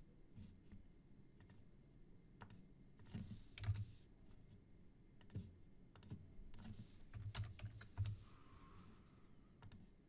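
Faint computer keyboard typing and mouse clicks, scattered and irregular, with a few soft low thumps, as dimensions are entered in CAD software.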